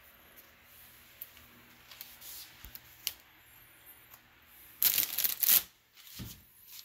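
Faint handling sounds of the sandwich being assembled and set down, then a loud rustling scrape lasting under a second about five seconds in, followed by a soft knock.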